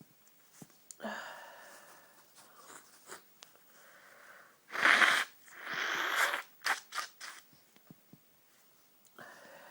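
A person sneezing hard once about five seconds in, with a gasping in-breath about a second in and a long breathy follow-through after the sneeze, then a few short sniffs. It is one of a string of strong, tickly sneezes in a fit brought on by a cold; another in-breath begins near the end.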